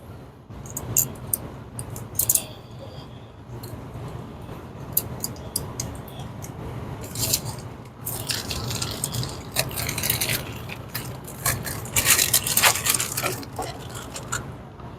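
Handling noise of wiring a high-limit switch: clicks and scrapes of wire spade terminals being pushed onto the switch terminals, busiest in the second half, over a faint low steady hum.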